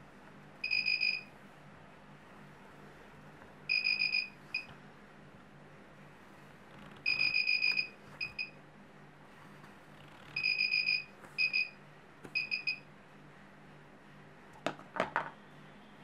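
Arduino-driven buzzer of a laser burglar alarm beeping a high, steady tone. It sounds in groups about every three seconds, each a roughly half-second beep followed by one or two quick chirps, as the laser beam to the light sensor is broken.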